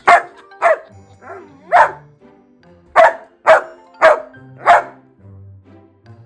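Dutch Shepherd barking in excitement: about seven loud, short barks in a loose series over the first five seconds, with light background music underneath.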